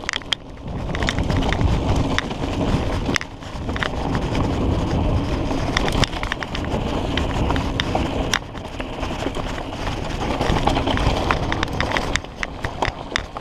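A mountain bike riding along a dirt trail, with wind buffeting the camera's microphone and many sharp clicks and knocks as the bike rattles over rough ground, most often near the end.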